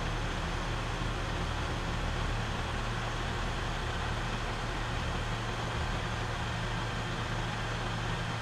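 Ram 1500 pickup idling: a steady low hum with an even hiss over it, unchanged throughout.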